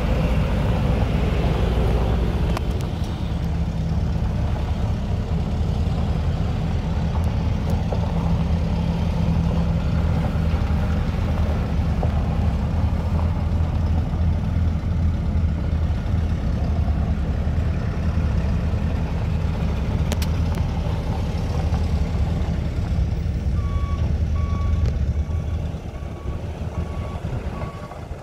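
Ford F-550 service truck's engine running as it drives over gravel. Near the end it backs up, and its reversing alarm sounds a steady run of beeps while the engine quiets.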